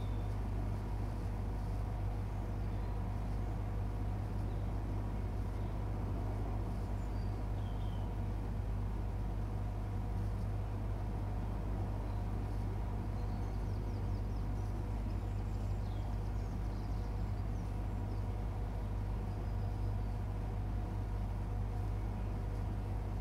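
Steady low mechanical hum, unchanging throughout, with a few faint steady tones above it and a few faint short chirps.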